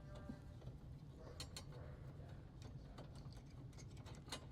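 Faint, scattered clicks and taps of hand tools and metal parts being handled as a license plate bracket is fitted, over a low steady hum.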